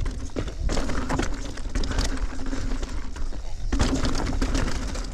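Mountain bike riding down a rough trail with the sound recorded on the bike or rider: heavy wind rumble on the microphone, tyres crunching over dirt and stones, and frequent knocks and rattles from the bike.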